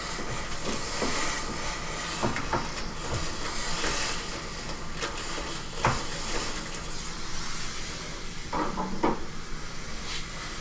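Jiffy handheld steamer spraying steam in a steady hiss against grimy washing-machine parts to lift soap scum and mold, with a few light knocks and clicks.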